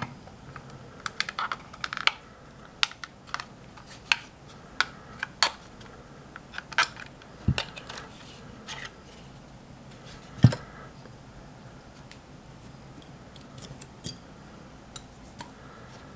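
Scattered clicks and taps of a small screwdriver prying the plastic latch tabs of a Saab 9000 SCC car computer's plastic case apart, with two louder knocks, one about seven seconds in and the loudest about ten seconds in.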